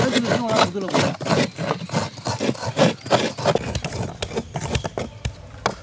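Coconut halves being scraped against hand coconut graters: quick, rhythmic rasping strokes, several overlapping at once.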